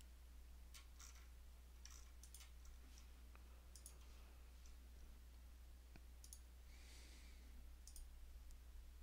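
Near silence: a few faint computer mouse clicks, spaced irregularly, over a low steady hum.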